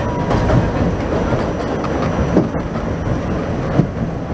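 New York City subway train running on elevated track, heard from inside the car: a steady rumble of steel wheels on the rails, with a couple of sharper clacks over rail joints.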